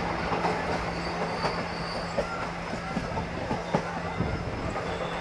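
Train running on the rails, heard from on board: a steady rumble with irregular clicks of the wheels over rail joints and a faint, brief wheel squeal about two seconds in.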